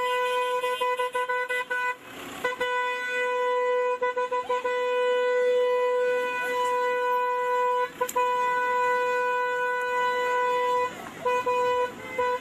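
A car horn held down in long blasts on one steady pitch, with a short break about two seconds in and a few quick breaks near the end.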